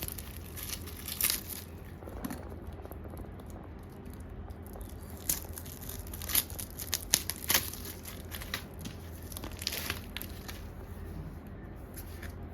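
Packaging being crinkled and torn by hand: scattered crackles and snaps, the sharpest about a second in and between five and ten seconds in, over a low steady hum.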